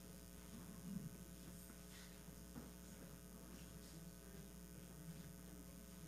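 Near silence: room tone with a steady low hum, and faint stirrings of people moving about, with one small knock about a second in.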